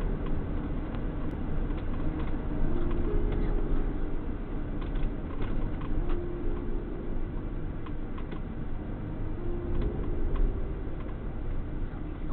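Engine and road noise of a Mercedes Sprinter van heard from inside the cab while driving, picked up by a dashcam microphone: a steady low rumble with a few small clicks and rattles.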